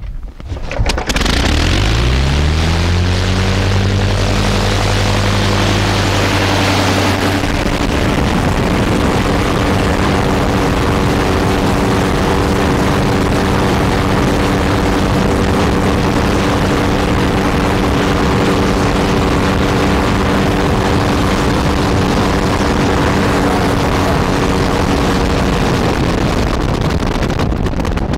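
A 160 hp Gnome rotary aero engine, hand-propped, catches about a second in, speeds up over the next few seconds and then runs steadily and loudly, with its propeller turning.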